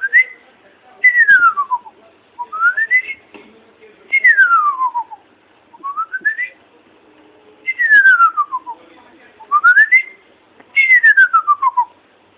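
Whistling in a call of two notes, a short rising note followed by a longer falling one, repeated four times with pauses between.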